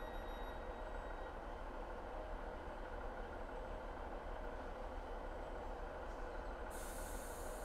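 Class 156 diesel multiple unit's diesel engine running with a steady low rumble. About seven seconds in, a hiss of compressed air starts.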